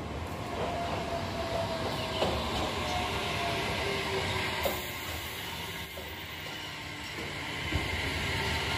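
JR Kyushu 817 series electric multiple unit running past, with the continuous rumble of its wheels on the rails. A steady high whine comes in about six seconds in, and there are a few faint clicks over rail joints.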